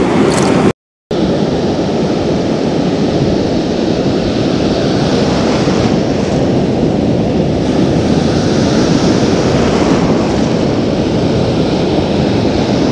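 Ocean surf breaking and washing steadily, with wind on the microphone. The sound cuts out completely for a moment just under a second in.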